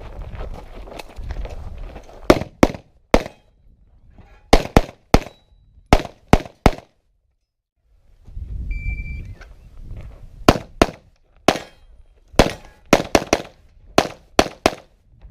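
Handgun shots fired fast in pairs and triplets while a shooter runs a practical pistol stage, with rumbling movement noise between the strings. About nine seconds in, a short electronic beep, like a shot timer's start signal, sounds before another run of quick shots.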